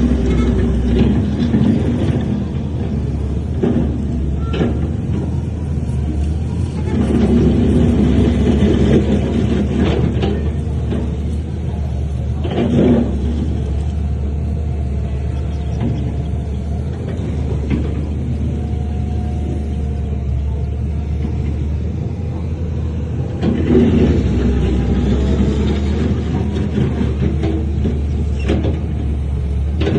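Heavy diesel earthmoving machinery running under load with a steady low rumble. It gets louder twice, about a quarter of the way in and again near the end, with a few short clanks in between.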